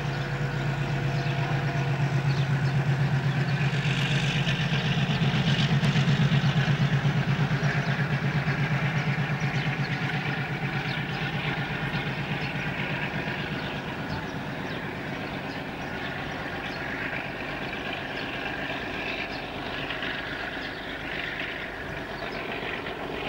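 Alco RS-8 diesel locomotive of OSE class A.201 working hard as it pulls a passenger train away, its engine running with a steady pulsing hum that fades as the train draws off.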